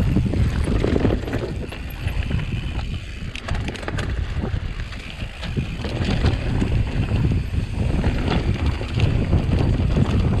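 Mountain bike riding over rough ground: wind buffeting the microphone in a low rumble that rises and falls, with many quick knocks and rattles from the bike.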